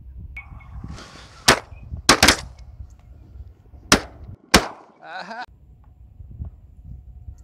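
Shotgun firing five shots in about three seconds, two of them nearly together.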